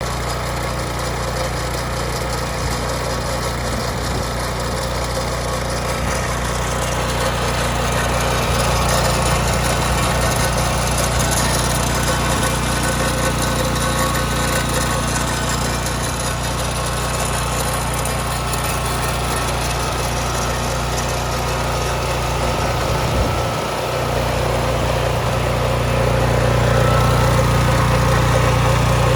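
Husqvarna FS309 concrete saw's Subaru 9 hp petrol engine running steadily. It gets somewhat louder near the end.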